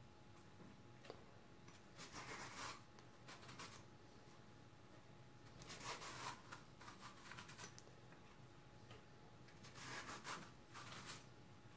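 Vegetable peeler scraping along a courgette, shaving off thin ribbons in several faint, short strokes a few seconds apart.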